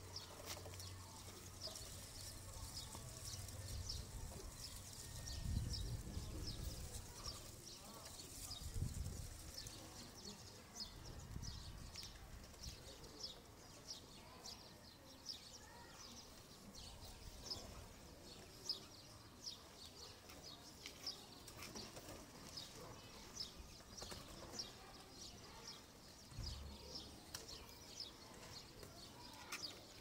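Faint, short high chirps of small birds repeating a few times a second throughout, with a few low thumps of wind or handling at the microphone.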